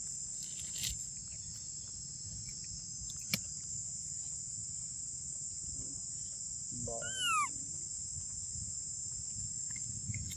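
Steady high drone of insects, with one short high-pitched call with an arching pitch about seven seconds in and a single sharp click a little after three seconds.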